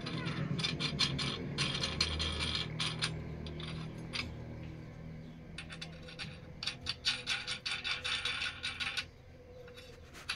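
Steel hex nuts spun by hand down threaded bolts clamping two rotavator blades, giving runs of quick metallic clicking and rattling. The runs come about a second and a half in and again from about six and a half to nine seconds.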